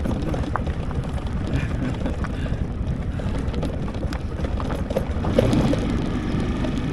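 Italika V200 motorcycle riding along, its engine running under heavy wind noise on the microphone, with scattered knocks and rattles and one louder knock about five seconds in.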